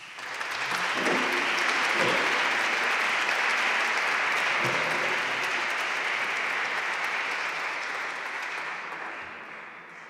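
Audience applauding. The applause swells within the first second, holds steady, and fades away over the last couple of seconds.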